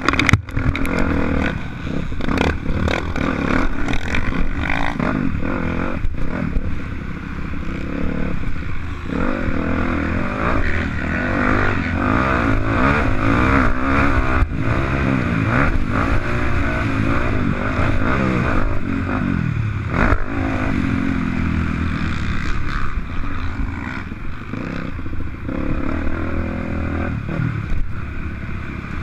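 Dirt bike engine revving up and down over and over as it is raced, with scattered knocks and rattles.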